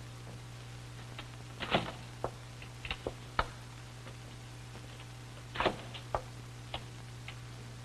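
Irregular short taps and scratches of writing on a large paper pad on an easel, about nine in all, the strongest about a second and a half in and again past halfway, over a steady low hum.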